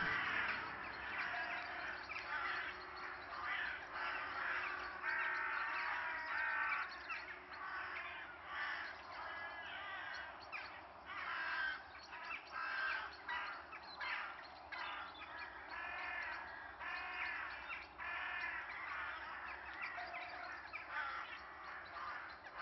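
A flock of birds calling, many short calls overlapping and repeating without pause.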